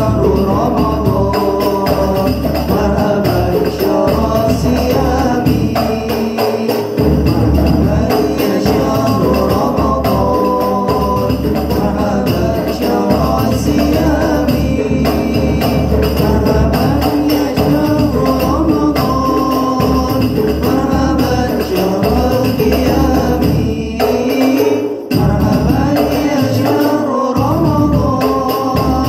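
Hadroh ensemble performing a devotional song: male voices singing into microphones over a steady, busy rhythm of hand-struck frame drums (rebana). The low drum strokes drop out briefly twice while the singing carries on.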